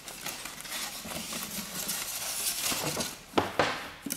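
A cardboard box being lifted off a heater packed in polystyrene and a plastic bag: cardboard and foam rubbing and rustling, with two sharp knocks about three and a half seconds in.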